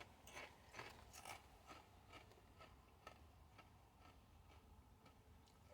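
Near silence: quiet room tone with faint, irregular clicks, about two a second at first, thinning out after about three seconds.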